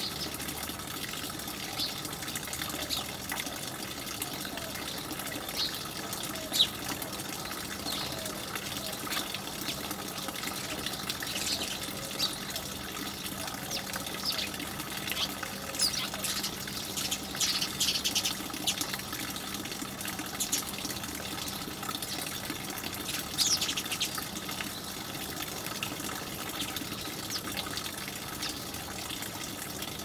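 House sparrows chirping in short high notes, with busier bursts of chirping a little past halfway and again later, over a steady rushing hiss like running water.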